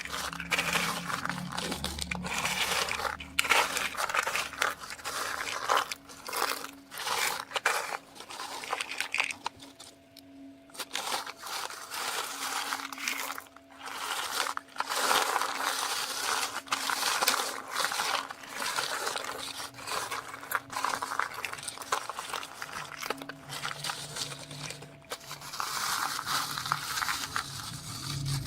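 Loose corn kernels rustling and crunching as they are moved: a dry noise made of many small clicks that swells and fades in waves, with a brief lull about ten seconds in. A faint steady hum runs underneath.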